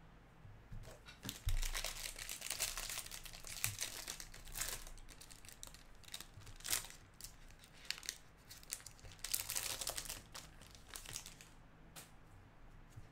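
A 2020 Topps Series Two jumbo baseball card pack's wrapper being torn open and crinkled, in irregular bursts of crackling that come and go for most of the stretch.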